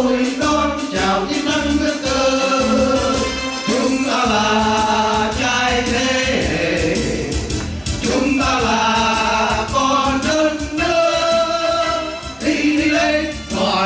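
A song sung in Vietnamese by voices over backing music, playing without a break.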